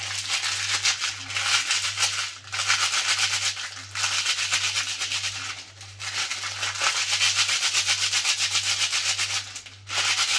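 Dried bay leaves being crushed and rustled in a paper packet: a dense crackling rustle in three spells, with short pauses about four and six seconds in. A low steady hum runs underneath.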